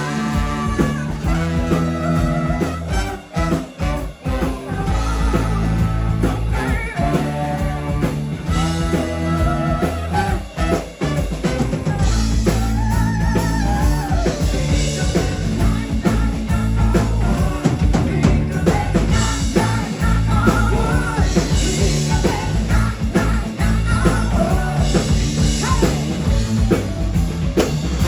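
Live band playing a disco-rock cover song: a singer over bass, drums and guitar with a steady beat.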